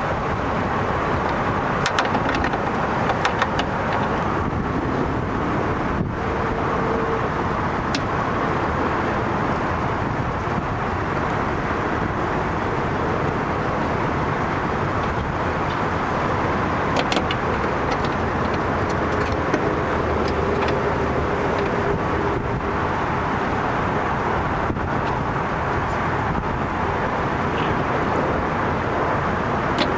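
Steady vehicle noise with a few faint light clicks.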